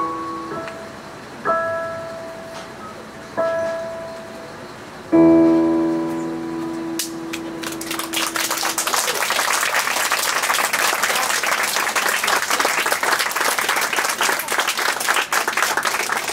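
Piano playing a few sparse notes and ending on a low chord about five seconds in that rings out; then audience applause starts and keeps going.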